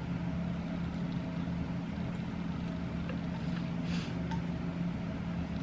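Steady low hum with a constant droning tone under it, with a few faint clicks and one short breathy noise about four seconds in.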